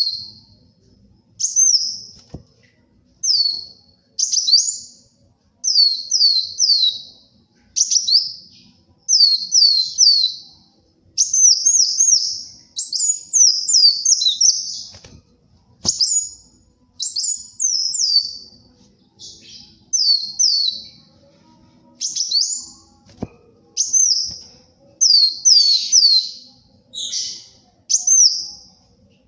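Kolibri wulung sunbird singing in its lively 'gacor' style: short bursts of two to four sharp, high, down-slurred chirps, a burst roughly every second with brief pauses between.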